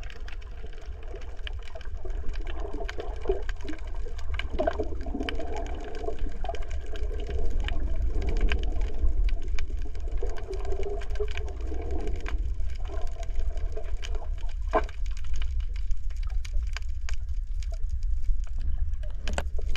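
Underwater sound picked up by a camera: a steady low rumble with scattered sharp clicks and some wavering tones that fade out about three quarters of the way through.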